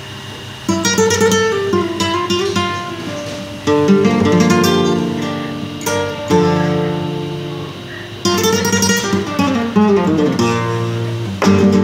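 Nylon-string classical guitar played solo and improvised: five strummed chords, each left to ring and fade, with single-note runs picked between them.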